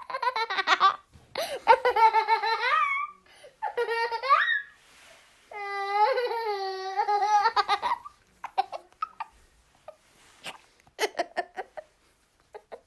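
Little boy laughing hard in four long, high-pitched bouts with short breaths between, then trailing off into a few short giggles in the last few seconds.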